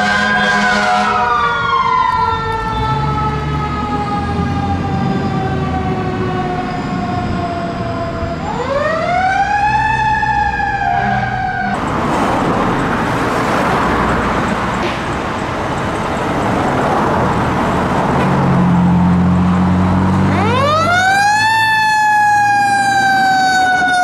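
Fire truck sirens: a wailing siren tone falls slowly, then winds up sharply about a third of the way through and starts to fall again. After a sudden change it gives way to a loud rushing noise over diesel engine rumble. Near the end a siren winds up again and falls slowly.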